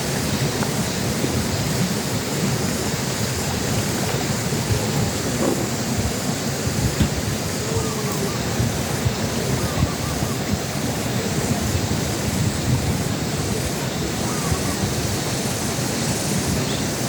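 Steady wind rushing over the microphone, a low, even rumble with no clear event standing out.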